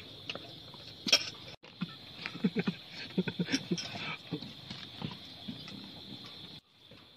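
Steady high chirring of night insects, over a string of short clicks and wet smacking sounds from people eating with their hands and chewing; a sharp click about a second in is the loudest.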